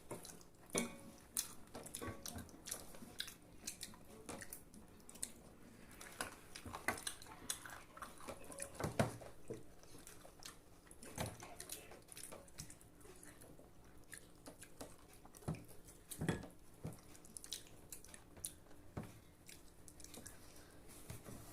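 A person chewing and biting food close to the microphone: irregular wet mouth clicks and smacks, a few louder ones scattered through.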